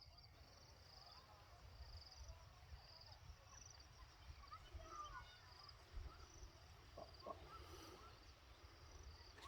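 Faint insect chirping outdoors: short pulsed trills repeating about once or twice a second, over a low rumble and a few faint short calls.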